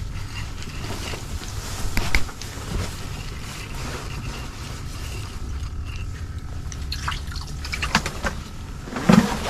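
Water dripping and sloshing, with scattered small clicks and knocks of handling that come thicker near the end, where there is one louder burst.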